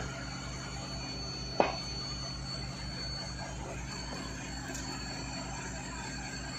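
Excavator-mounted pile hammer striking a timber pile twice, at the start and about one and a half seconds in, each blow a sharp heavy knock. Over this, the machine's diesel engine runs with a steady low throb.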